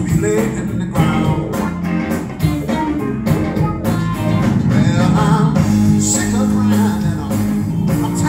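Live blues band playing: electric guitar over electric bass, drums and keyboard, with a steady drum beat.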